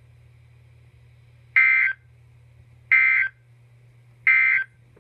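NOAA Weather Radio SAME end-of-message code: three short bursts of two-tone data screech, a little over a second apart, marking the end of the required weekly test. A faint steady hum runs underneath.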